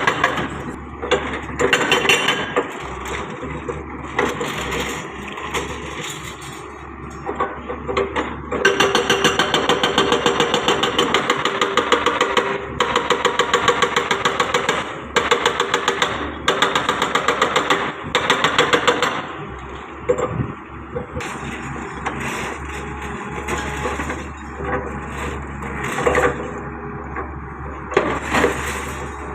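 Hyundai R140W-7 wheeled excavator's diesel engine running, loud in stretches of a few seconds with a rapid, even pulsing and easing off in between.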